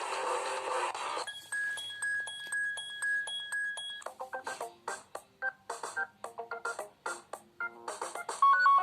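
KAZAM Trooper2 phone's built-in ringtones and alert tones played one after another: a full musical ringtone ends about a second in, then a steady electronic tone with short repeated pips, then a quick run of short plucked notes, and another melodic ringtone starts near the end.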